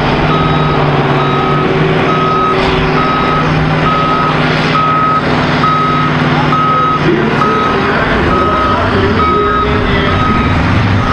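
Backup alarm beeping steadily, about one beep every 0.6 seconds, over a diesel tractor engine running at idle. The engine note shifts about seven seconds in.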